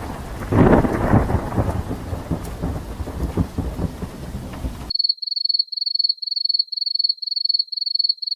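Thunderstorm sound effect: rain with a rolling thunder rumble that swells about a second in, cut off abruptly about five seconds in. It is followed by a high electronic beep repeating evenly, about two to three times a second.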